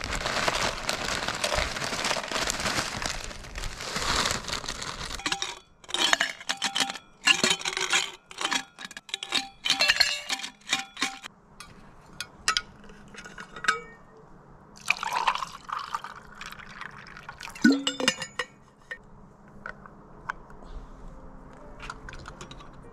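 Liquid poured for about five seconds, then a run of sharp clinks and taps of cups and cookware, a second brief pour about fifteen seconds in, and a louder ringing clink near eighteen seconds.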